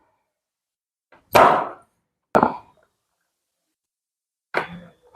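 Sudden thrusts of a side-lying low-back chiropractic adjustment: a loud dull thud about a second and a half in, a sharp crack about a second later, then a smaller knock and another thud near the end.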